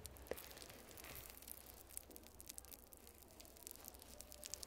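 Thin translucent brush sheet being handled close to the microphone, rustling and crinkling faintly with many small irregular crackles.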